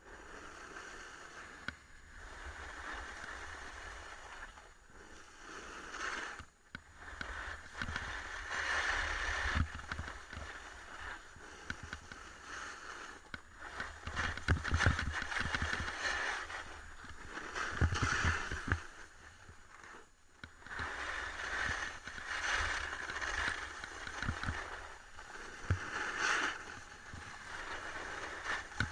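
Sliding down a snow piste: edges hissing and scraping over the snow, swelling and fading every few seconds, over a low rumble of wind on the camera's microphone.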